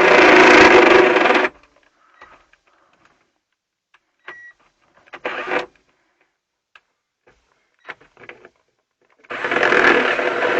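Cordless drill with a step drill bit cutting into a thin aluminium panel, run in two long bursts, one at the start and one near the end, with a brief burst in between and small clicks and handling noises during the pauses.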